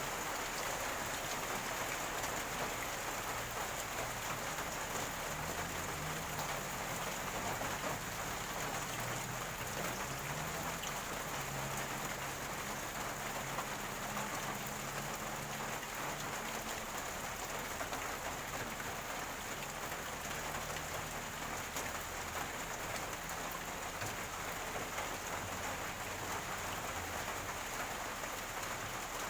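Rainwater gurgling and splashing in an even, continuous rush, with a low burbling underneath.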